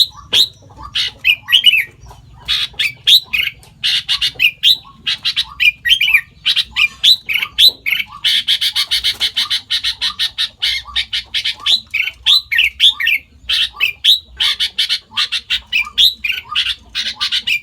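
Sooty-headed bulbul calling continuously: a rapid run of squawking calls and short downslurred notes, with an unbroken fast chatter about 8 to 10 seconds in.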